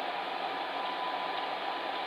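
Electric fan heater running steadily: an even rushing hiss of blown air with a faint constant hum underneath.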